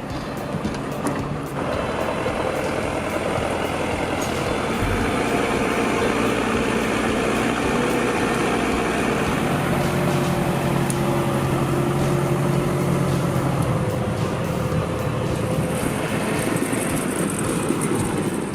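Heavy vehicle engine running steadily, its note changing a little about a second and a half in and growing stronger for a few seconds midway.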